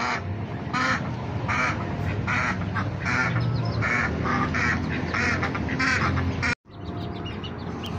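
Domestic ducks quacking loudly in a quick series, about two quacks a second, breaking off abruptly near the end.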